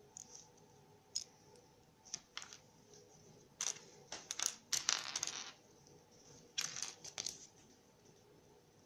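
A Kinder Surprise egg being unwrapped and opened by hand: a run of short crinkles and clicks from the foil wrapper and plastic, with the longest rustle about five seconds in.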